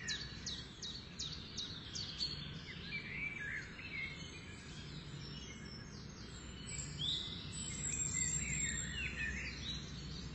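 Several songbirds chirping and calling, with a fast series of quick, high, repeated chirps in the first couple of seconds and looser calls after. Under the birds runs a steady low background hum.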